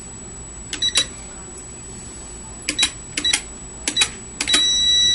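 Metal buttons of a KPX-100 programmable keypad clicking as a code is keyed in, several presses with short high beeps. Near the end comes one longer steady beep as the code is accepted and relay 1 is activated.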